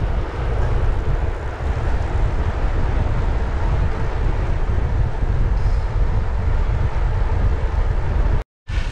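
Wind rumbling over the microphone of a camera on a moving bicycle, mixed with tyre noise on tarmac: a steady, loud noise heaviest in the low end. It cuts to silence for a moment near the end.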